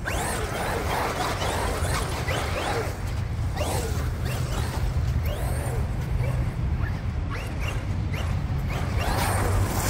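Traxxas XRT RC monster truck driving on muddy dirt: its brushless electric motor whines up and down in pitch as the throttle is worked, over a steady low rumble of wind on the microphone. It grows louder near the end as the truck comes back close.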